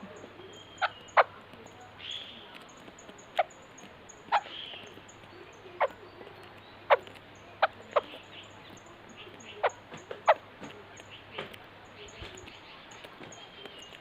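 Birds giving short, sharp call notes at irregular intervals, about a dozen, with a few softer calls between them. A faint high-pitched chirping repeats in a fast, even rhythm behind.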